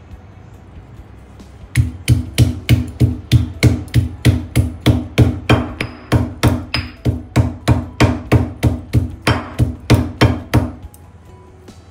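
Stone pestle pounding pieces of boiled beef in a stone mortar: dull, even strikes about three a second, beginning about two seconds in and stopping near the end. The beef is being pounded to tenderise it so it won't be tough when fried.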